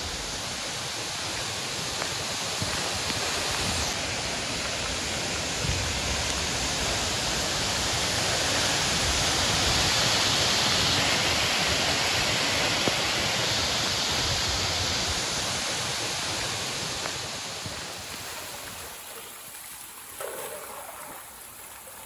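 Waterfall about 390 feet high, water pouring down in a steady rushing noise, loudest around the middle. It dies down to a much quieter background about three-quarters of the way through.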